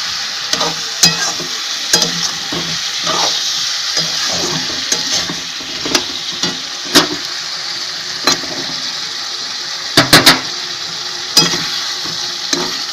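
Potato chunks and onions sizzling in hot oil in a kadai while a spatula stirs them, scraping and knocking against the pan. A quick run of three knocks comes about ten seconds in.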